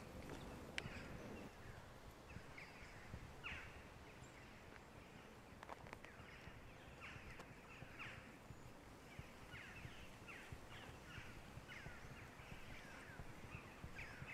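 Faint chirping of small birds: many short, quick calls, repeating. A single sharp click sounds just under a second in.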